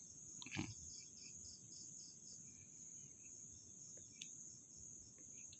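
Faint night insects, cricket-like: a steady high-pitched trill with a softer chirp pulsing about three times a second, and a couple of faint clicks.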